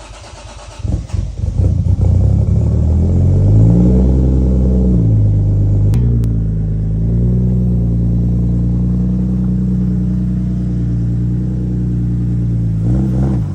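Toyota Supra's 1JZ-GTE turbo straight-six starting up about a second in, then revved and held briefly before dropping back. It rises again to a steady fast idle, with a short blip near the end. Two sharp clicks sound midway.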